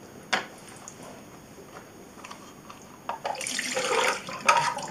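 A single click from the film developing tank as its side is taken off, then from about three seconds in, the last wash water pouring out of the tank and splashing into the sink basin.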